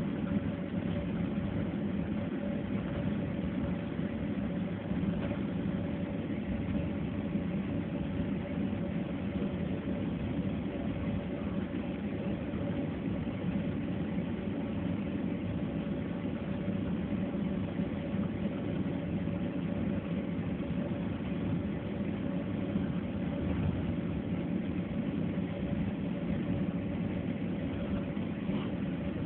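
Steady hum of a jet airliner's cabin with its engines running at low power on the ground before take-off, with a thin steady tone running through it.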